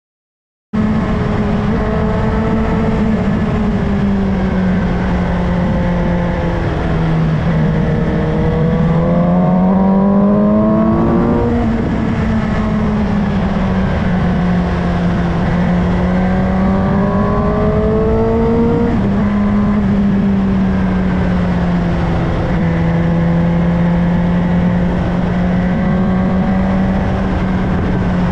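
Suzuki GSX-S750 inline-four engine running under way, heard on board, cutting in abruptly about a second in. Its pitch climbs steadily twice and drops sharply each time, then holds fairly steady, over a constant rush of wind noise.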